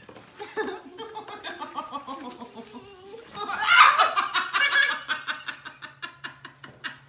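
Laughter that swells into a loud burst about halfway through, then breaks into quick repeated ha-ha pulses that die away.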